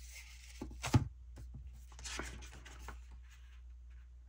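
Printed paper sheets and a sticker book being shuffled and slid across a tabletop, with a sharp tap about a second in as something is set down.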